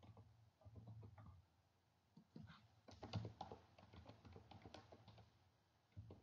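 Faint typing on a computer keyboard: quick key presses in short runs with pauses between them, the busiest run in the middle.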